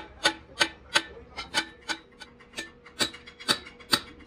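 Repeated hammer blows on a steel truck brake drum hub, about three a second, each with a short metallic ring: the old wheel studs being hammered out of the hub.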